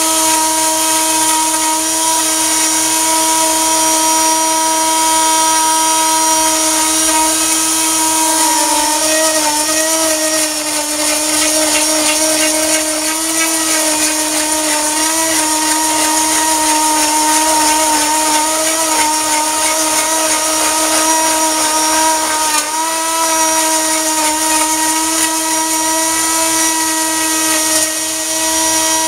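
Electric wood router running at high speed with a steady high whine, its bit cutting a wooden spar being rounded on a router lathe. The pitch dips briefly under the load of the cut about a third of the way in and again about three quarters of the way through.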